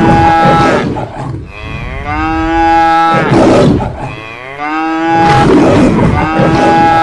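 Cow mooing: several long, drawn-out moos one after another, with short breathy pauses between them.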